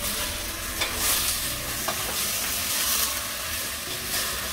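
Chicken pieces sizzling in hot oil in a stainless steel pot while being stirred with a wooden spoon, a steady hiss with a couple of light knocks of the spoon against the pot.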